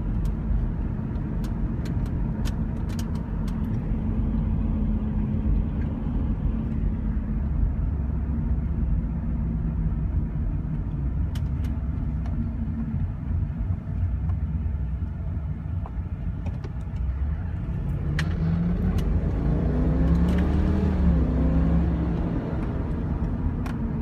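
2002 Ford Thunderbird's 3.9-litre V8 and road rumble heard from inside the cabin while driving, steady and low at first. About eighteen seconds in, the engine note climbs in pitch and gets louder as the car accelerates.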